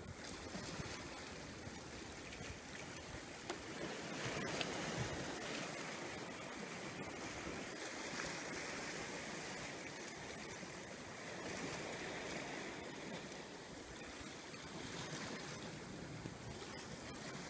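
Steady wash of wind and sea, with a few faint clicks as a rod and spinning reel are handled and cast, the wash swelling a little after a few seconds.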